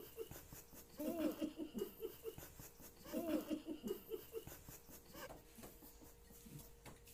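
Muffled vocal sounds from a person whose mouth is stuffed with marshmallows: twice, about a second in and again about three seconds in, a rising-then-falling sound breaks into quick choppy pulses, then it fades to quieter noises.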